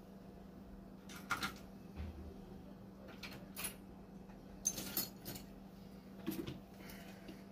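A series of light clicks and clinks from small tools being handled on a workbench, over a steady low hum.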